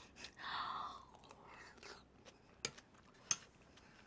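Faint mouth sounds of a person eating a spoonful of thick porridge: a short breathy hiss about half a second in, then soft chewing with two sharper clicks near the end.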